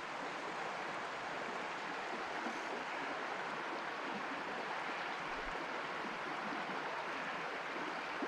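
Brook water running, a steady rushing wash with no distinct splashes or other events.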